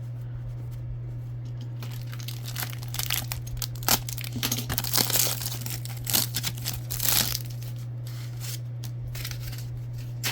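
Trading card pack wrapper being torn open and crinkled by hand, a few seconds of crackling rustles with several sharp tears, over a steady low electrical hum.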